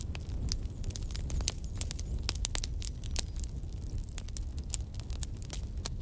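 Wood fire burning in a fireplace, logs crackling and popping irregularly over a low, steady rumble.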